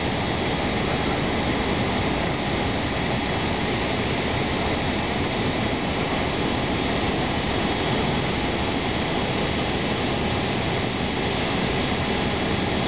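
Steady jet aircraft engine noise, an even rush with a thin high whine held throughout.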